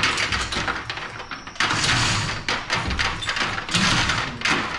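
Chain hoist's hand chain rattling in bursts as it is pulled to lift the Rover Mini's engine out of the engine bay.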